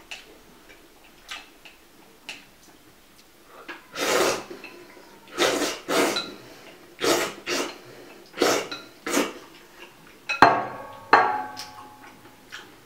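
Noodles being slurped from a bowl: a run of about seven noisy slurps starting about four seconds in. About ten seconds in, a sharp clink from the enamel bowl rings briefly.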